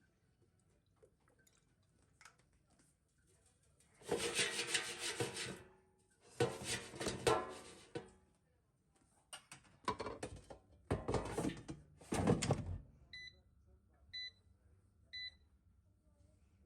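Several seconds of clattering, rustling kitchen handling noise in three bursts, then three short electronic beeps about a second apart from a kitchen appliance's keypad.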